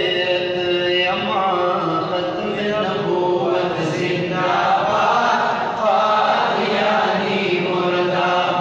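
A man's voice chanting a Pashto naat, a devotional praise poem, without instruments, in long held notes that waver up and down.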